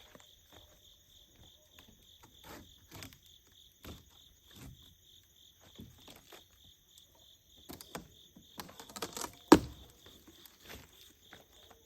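Crickets chirping steadily, about three chirps a second, over scattered light knocks and rustling from handling, with one sharp loud knock about three-quarters of the way through.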